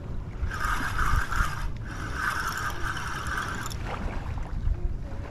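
Spinning reel being cranked, its gears whirring steadily as line is retrieved, in two spells of about one and two seconds with a short break between.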